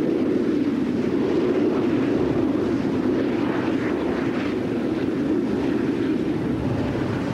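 Steady low roar of steam and surf where lava flows into the sea, with the steam billowing up.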